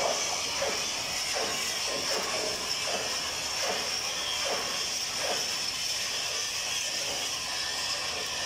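Stick-welding (SMAW) arc on steel plate during a vertical fill pass, a steady hiss and crackle with a faint regular pulse a bit more than once a second.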